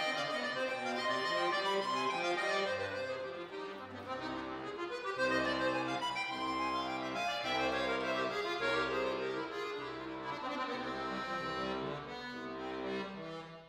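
Solo Cooperfisa concert accordion playing classical music: quick runs of notes at first, then from about four seconds in a sustained bass under repeated chords.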